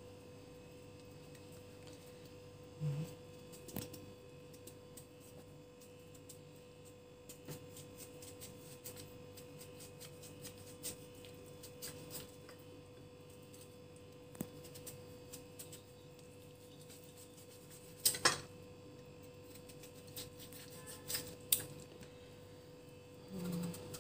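Faint scraping and scattered small clicks of a knife and spoon working the seeds and fibres out of a cut pumpkin, with metal now and then knocking on a plate; a sharper clatter about 18 seconds in. A steady hum runs underneath.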